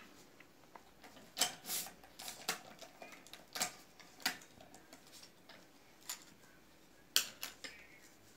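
Sharp, irregular metallic clicks and clacks from a hand-operated cigarette tube filling machine as its lever and slide are worked and empty filter tubes are handled, about ten in all.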